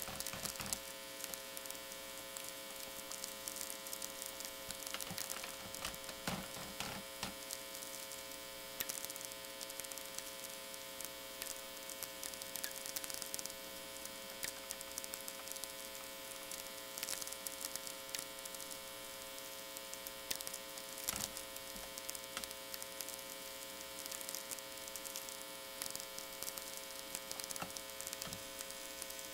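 VLF natural-radio receiver output: an irregular crackle of sferics, the sharp radio clicks sent out by distant lightning strokes, over a steady buzz of power-line hum.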